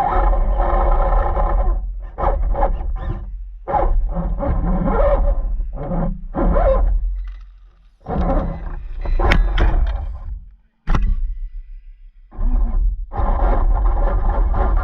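Radio-controlled car driving in bursts of throttle, its motor and drivetrain running hard for a second or two and then cutting out, again and again, with a heavy low rumble. Two sharp clicks come about halfway through.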